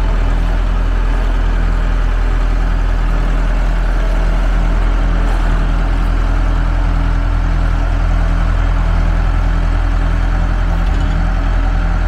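Bobcat 943 skid steer loader's diesel engine idling steadily.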